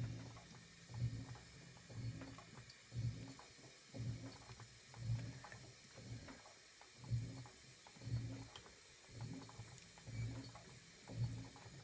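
2012 LG top-load washer's direct-drive motor running in short low hums about once a second as it turns the wash plate back and forth on the gentle delicates agitation.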